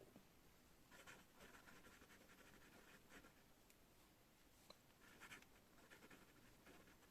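A pen scratching across paper in faint, short bursts of handwriting strokes, with a brief lull in the middle.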